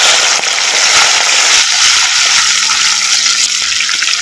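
Sardines sizzling and crackling as they are dropped into hot coconut oil in a clay pot: the sizzle of wet, freshly marinated fish hitting the oil, loud and steady.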